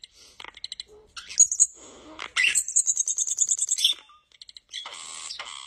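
European starling singing: a jumble of clicks, whistles and rattles, with a loud buzzy rattle lasting about a second and a half in the middle.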